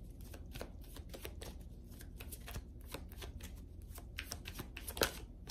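A tarot deck being shuffled by hand: a quick, uneven run of soft card clicks and flicks, with one sharper snap of the cards about five seconds in.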